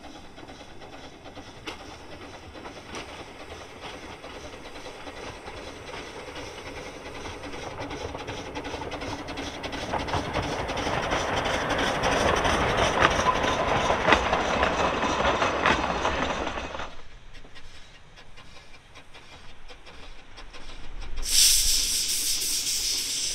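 The 2 ft gauge steam locomotive Brown Bear, a replica of a Bagnall tank engine, draws near and passes with its carriages, the running and rattle of wheels on rail growing louder to a peak about 10 to 16 seconds in, with clicks over the track. Near the end, a loud steady hiss of steam from the locomotive's open cylinder drain cocks as it approaches.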